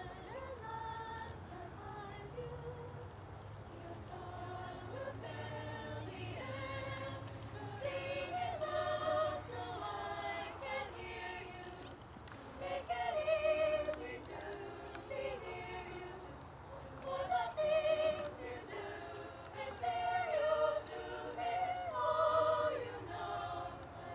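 A choir of girls' and young women's voices singing together, with long wavering sung notes.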